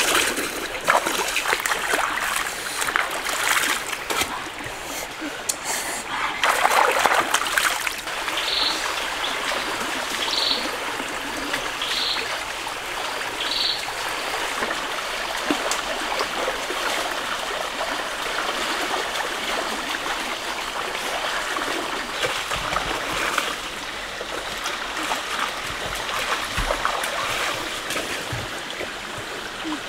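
Hands scooping and splashing shallow river water, irregular splashes for the first several seconds, over the steady sound of running stream water. The stream carries on alone through the middle, where four short high chirps come at even spacing, and more splashing comes near the end.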